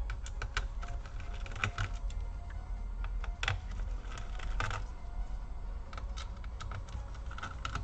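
Small irregular clicks and ticks of a precision screwdriver working the screws that hold a laptop's CPU and GPU cooler, over a low steady hum.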